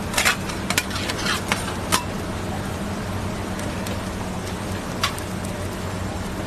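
Steady low hum and hiss of a street-food griddle stall, with a few light clicks and taps in the first two seconds and one more about five seconds in.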